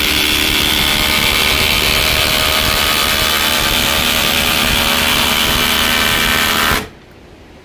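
Two cordless impact drivers, a Flex 24V quick-eject and a Milwaukee M18 Gen 3, hammering together at full trigger as they drive 1/2-inch by 10-inch lag bolts into wood. The loud, steady impacting stops suddenly near the end.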